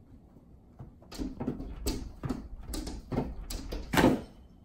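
A cat jumping at a glass sliding door and its frame: a run of knocks and scrapes, ending in a louder thump about four seconds in.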